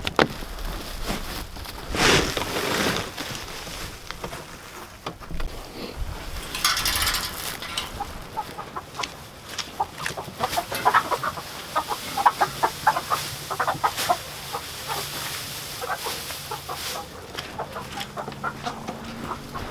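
Chickens clucking in quick runs of short calls, thickest in the second half.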